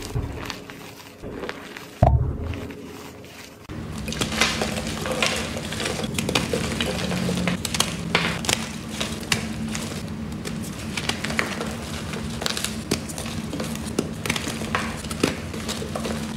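Blocks of gym chalk crushed and crumbled by hand: a dense run of dry crunches and crackles. Before that, powdery chalk is squeezed in a glass bowl, with a single thump about two seconds in.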